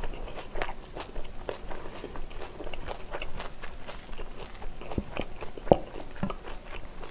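Close-up crunchy chewing of kimchi bibimbap with wet mouth clicks, and a spoon scooping in a stainless steel bowl. One sharp knock stands out about five and a half seconds in.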